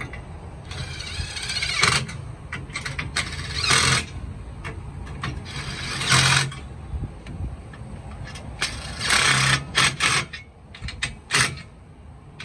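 Cordless power driver with a socket spinning the nuts down on steel trailer U-bolts. It runs in several separate bursts, the longest about a second, with a few shorter blips near the end as the nuts are snugged tight.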